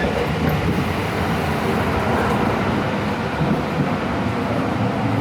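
Sleeper train running, a steady rumble with no distinct events.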